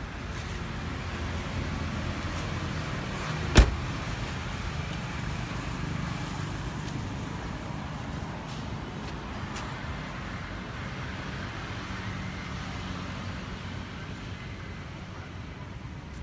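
A car door shutting once with a single sharp thud about three and a half seconds in, over a steady low background rumble.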